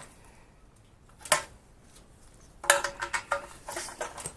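Metal parts of a pressure washer's small engine clinking and tapping as they are fitted back together: a single sharp click about a second in, then a quick cluster of ringing clinks in the second half.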